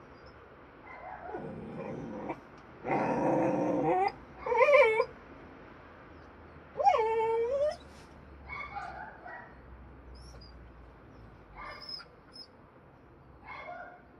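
A dog whining and yelping in a string of separate high cries that bend up and down in pitch. The loudest come between about three and eight seconds in, followed by a few fainter whimpers.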